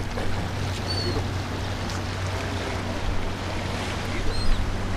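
Small waves washing over jetty rocks, with wind and a low steady drone of boat engines on the inlet. A few faint, short high chirps come through about a second in and again near the end.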